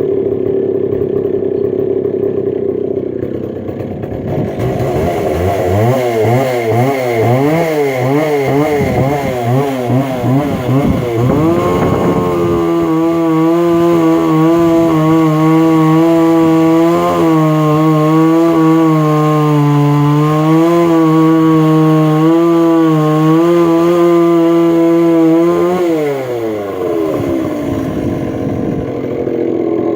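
McCulloch Pro Mac 610 two-stroke chainsaw engine running: it idles, then rises and falls in quick waves for several seconds. It is then held at high revs for about fourteen seconds and drops back to idle near the end.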